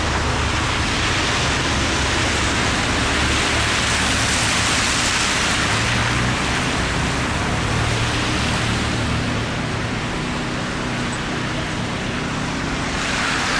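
Road traffic on a snow-covered city street: a steady hiss with a low engine hum, swelling about four seconds in and again near the end.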